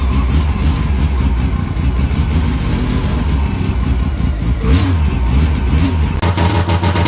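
Mazda 12A rotary engine running and being revved in throttle blips. About six seconds in it cuts to another 12A running with a choppy, evenly pulsing beat.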